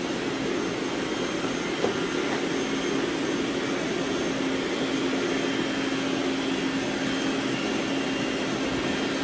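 Several robot vacuums running together, a steady whirring hum with a faint knock about two seconds in.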